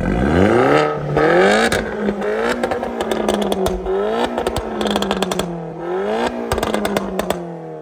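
Tuned Opel Corsa OPC Nürburgring's turbocharged 1.6-litre four-cylinder, breathing through a custom 2.75-inch exhaust with a Wagner sport catalyst, revved hard while standing still. It climbs sharply at the start, is held high with several blips, and drops back near the end, with repeated crackles through the exhaust.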